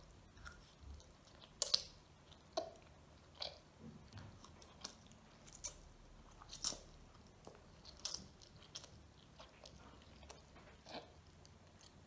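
A child eating instant ramen noodles and small sausages: irregular, close-up wet chewing and mouth smacks with short noodle slurps. The loudest come about a second and a half in and again near seven seconds.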